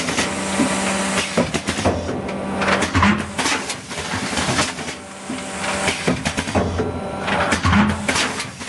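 Automatic Doypack pouch filling and capping machine running: a steady motor hum under repeated sharp clacks of its moving parts and bursts of hissing, typical of pneumatic cylinders firing and venting air.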